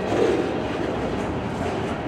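Two EMD SD40-2 diesel locomotives, each with a two-stroke V16 engine, running under power on a freight train, with steady rail and wheel noise.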